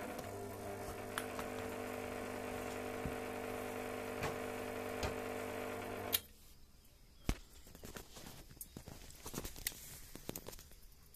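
Awelco Mig One flux-core MIG welder humming steadily at mains frequency while idle after a weld. The hum stops abruptly with a click about six seconds in, and a few faint scattered clicks follow.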